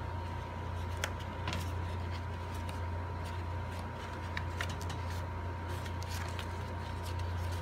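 Cardstock paper petals rustling and crackling in short, scattered bursts as hands press and curl them into a paper flower, over a steady low hum and a faint steady high tone.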